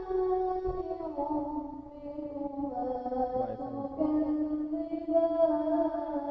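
A single voice reciting the Quran in a slow melodic chant, amplified over PA loudspeakers. It holds long notes that glide gently downward in pitch.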